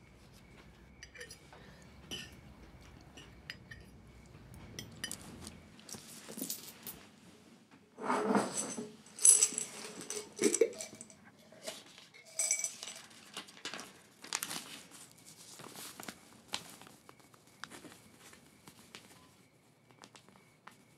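Faint clinks of cutlery on plates over a low room hum. After about six seconds the hum stops, and coins rattle and clink sharply in a small glass jar as it is opened and handled, loudest in the middle of the stretch, followed by lighter scattered ticks.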